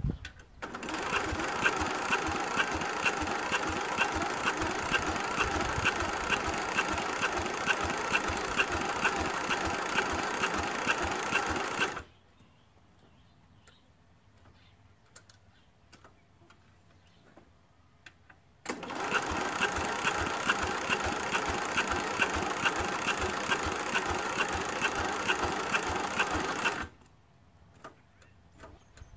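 Ride-on lawn mower's starter cranking the cold engine in two long bursts, one of about eleven seconds and one of about eight, each a fast, even beat, without the engine catching: the choke was not engaging.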